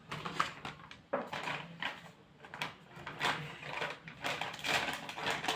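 A container and craft materials being handled on a work surface: irregular knocks, clicks and scrapes.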